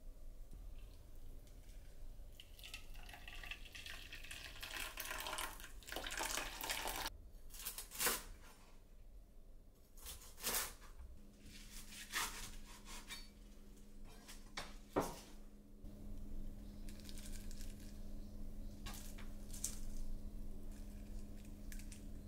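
Kitchen work sounds: a tap running for a few seconds, a few sharp clinks of dishes, then the steady low hum of an appliance that starts about halfway through.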